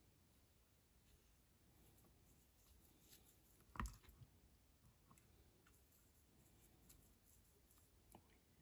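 Near silence: faint scattered clicks and light scratching from small hand work, with one sharper knock a little under four seconds in.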